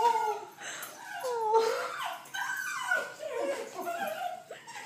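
Small dog whining and yipping in a run of short, high calls, several falling in pitch: the excited whimpering of a dog greeting its returning owner.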